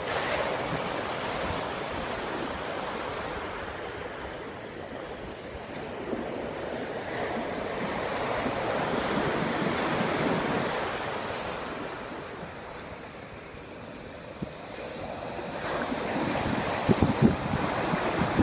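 Atlantic surf breaking on a sandy beach, a continuous wash that swells and eases over several seconds. Wind buffets the microphone near the end.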